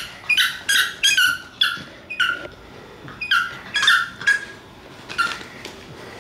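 Staffordshire bull terrier puppy whining and yipping in a string of short, high-pitched squeals, about a dozen in quick clusters, pestering an older dog to play.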